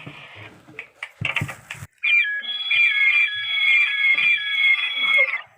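Electronic alarm-like sound: a steady high tone with falling chirps repeating about twice a second. It starts abruptly about two seconds in, after a few short noisy bursts, and cuts off suddenly near the end.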